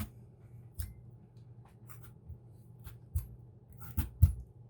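A fork pricking holes in small potatoes: scattered short taps and scrapes, the loudest two close together near the end.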